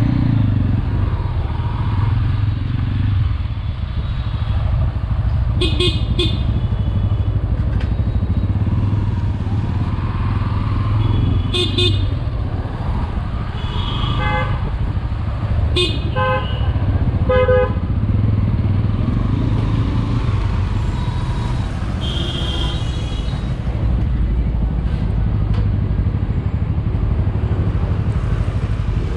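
Motorcycle engine running steadily through street traffic, with short vehicle horn toots several times.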